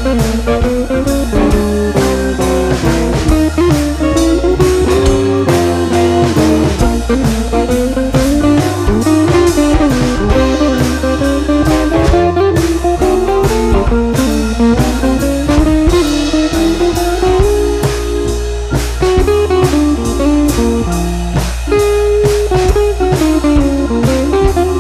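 Background music: a blues-style guitar tune over a steady drum beat.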